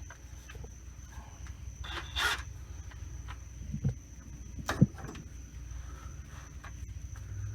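Scattered light knocks and clunks of tools and parts being handled during work on car rear suspension, with a short noisy burst about two seconds in, over a steady low hum.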